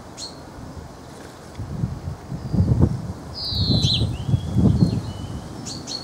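Wind buffeting the microphone in low rumbling gusts, loudest through the middle. Above it come a few short, high bird chirps and one falling call about halfway through.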